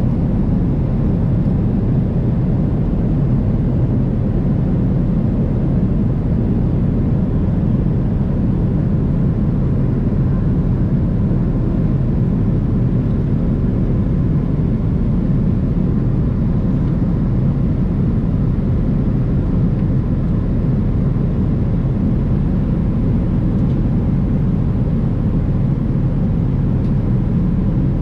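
Boeing 777-300ER cabin noise: a steady low roar of engines and airflow, even throughout with no distinct events.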